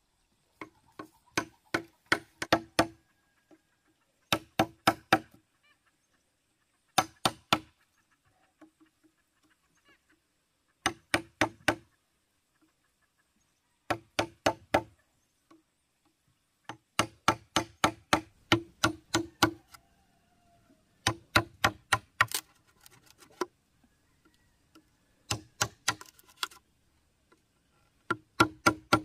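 Repeated blows of a hand tool on wood while building a swing, coming in bursts of several quick strikes, about four or five a second, with pauses of one to three seconds between bursts. Each blow carries a short ringing note.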